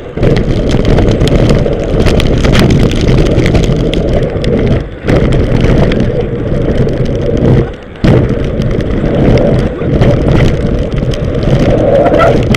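Loud wind buffeting on a handlebar-mounted action camera's microphone while riding a mountain bike over a rough, muddy trail, mixed with frequent rattles and knocks from the bike and mount. The noise drops briefly twice.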